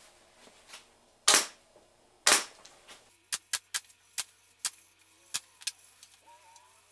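Pneumatic upholstery staple gun firing staples through the headliner cloth: two loud shots about a second apart, then seven lighter clicks in quick succession.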